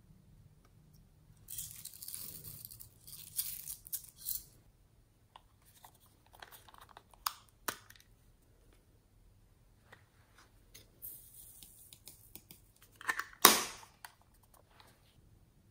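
Small hinged plastic cases of glitter being handled close to the microphone: short hissing rustles, a few light clicks, and one loud sharp snap near the end as a plastic lid clicks shut.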